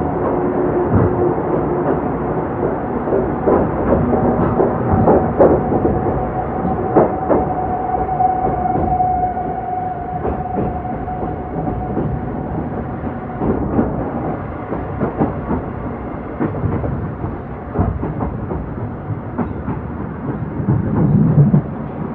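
Old-type passenger coach, hauled by an EF70 electric locomotive, running on the rails, heard inside the coach: a steady rumble with irregular clicks of the wheels over rail joints. A steady whine runs along with it and fades out a little past halfway.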